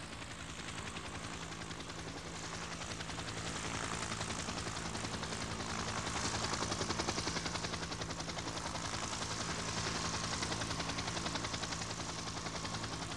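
A steady mechanical drone with a rapid, even pulsing over low engine-like tones, growing louder towards the middle and easing off near the end.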